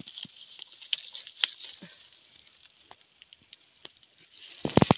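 Leaves and twigs rustling and crackling as hands work through a leafy shrub, picking shoots. The crackles are scattered and light, busier in the first couple of seconds. Near the end comes a quick run of loud, close knocks.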